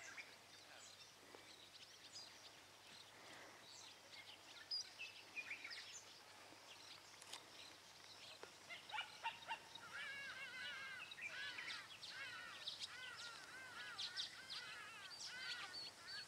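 Faint outdoor ambience with birds calling: scattered high chirps at first, then from about nine seconds in a quick, busy run of short arching calls.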